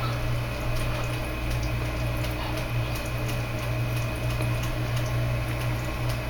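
Steady low hum with faint scattered crackles, an unbroken background drone.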